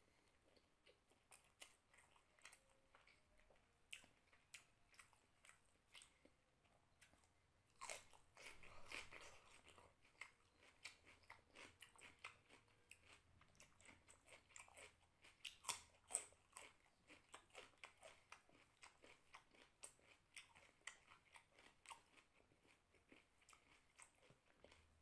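Close-up eating sounds of a person eating rice and vegetable curry by hand: quiet, moist chewing with many short clicks and crunchy bites, a little louder for a couple of seconds about a third of the way in.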